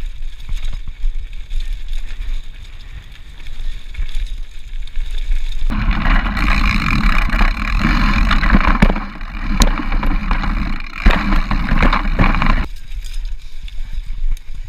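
Mountain bike riding fast along a leaf-covered dirt trail: low wind buffeting on the action camera's microphone, tyres rolling over dry leaves and dirt, and occasional sharp knocks as the bike rattles over roots. About six seconds in the tyre-on-leaves noise becomes much louder, then drops back down about two seconds before the end.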